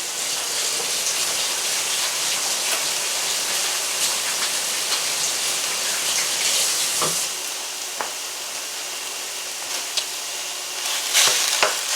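Raw ground beef and red onions sizzling in a hot skillet, a steady hiss that eases slightly about seven seconds in. A few light clicks and knocks come near the end.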